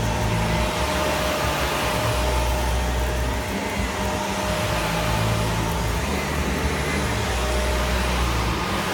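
Shark vacuum cleaner running steadily, its motor giving a constant whine over the rush of air.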